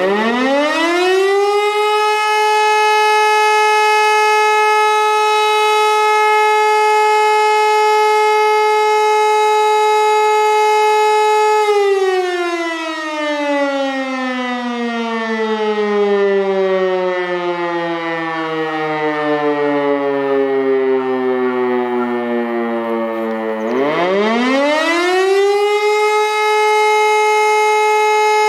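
E57 electromechanical siren sounding the German "Feueralarm" signal, which calls out the volunteer fire brigade. It winds up quickly to a steady high howl and holds it for about ten seconds. Then it winds down in a long falling glide for about twelve seconds, and winds up again and holds steady near the end.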